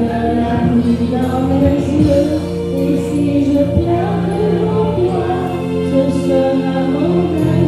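A woman singing into a corded microphone over a karaoke backing track, holding long notes that slide in pitch.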